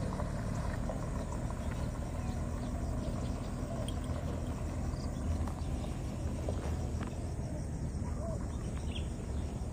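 Rural outdoor ambience: a steady low rumble with a few faint short chirps now and then.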